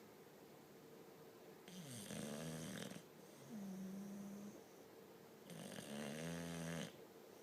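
Sleeping bulldogs snoring: two loud, raspy snores, about two seconds in and again about five and a half seconds in, with a smoother, humming snore between them.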